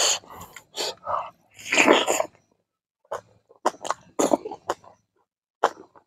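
A man's mouth sounds while eating by hand: two short breathy huffs, much like a cough, in the first couple of seconds, then wet chewing and lip-smacking clicks from about three seconds in.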